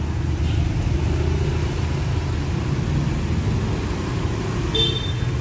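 Steady low rumble of jammed road traffic: car and motorcycle engines running as vehicles creep past. A short high chirp sounds near the end.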